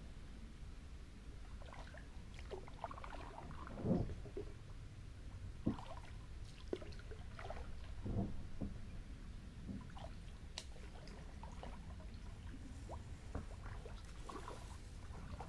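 Gentle water trickles and small splashes around a plastic sit-on-top kayak gliding on a still river, with a few louder splashes about four, six and eight seconds in.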